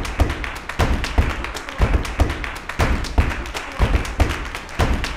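A steady rhythm of low thumps, about one a second, with lighter taps between them.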